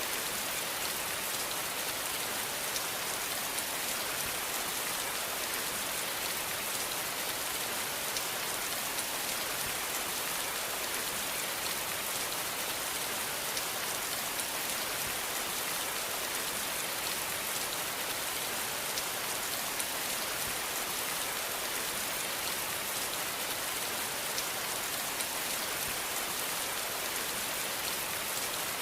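Steady rain falling on a surface, a dense even patter of drops with no change in intensity.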